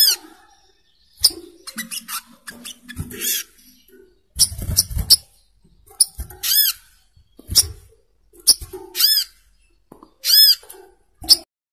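Brown-throated sunbird (sogok ontong, the 'coconut bird') giving short, sharp chirping calls, about once a second and at irregular spacing. Each call is a quick rising-then-falling note, and some come with a low thump.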